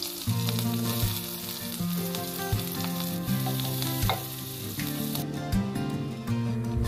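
Chopped onions, green chillies and curry leaves sizzling in hot oil in a clay pot and being stirred, with a low background melody underneath.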